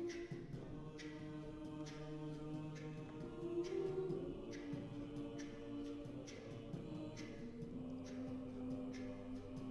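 College a cappella group singing live: held choral harmonies, with vocal percussion keeping a steady beat of sharp strikes.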